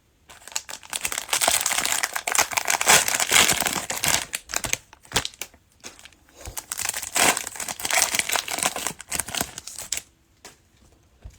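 Plastic cello-pack wrapper of trading cards being torn open and crinkled by hand: dense crackling for about ten seconds, with a short lull midway, then it stops.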